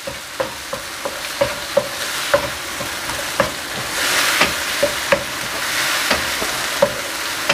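Vegetables and curry paste sizzling in oil in a nonstick wok while a wooden spatula stirs them, with frequent short knocks of the spatula against the pan. The sizzle grows louder about four seconds in.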